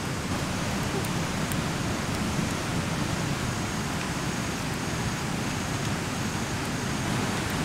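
Steady rush of flowing stream water, with a few faint crackles from a wood fire.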